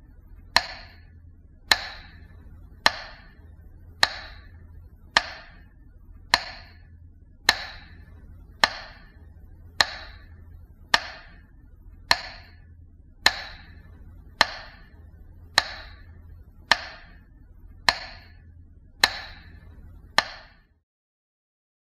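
Slow metronome beats, one sharp tick a little more than once a second, marking a minute of silence, with a faint low hum beneath. The beats and hum stop about a second before the end.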